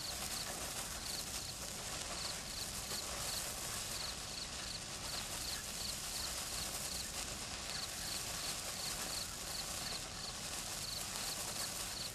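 A neon sparkler burning with a steady fizzing hiss. A faint high-pitched chirp repeats about three times a second behind it.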